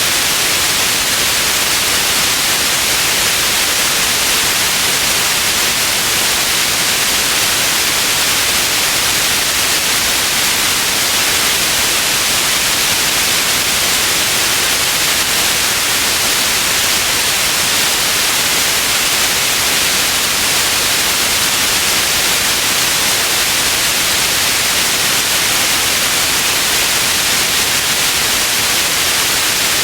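Steady white noise, an even hiss that is strongest in the high range and does not change.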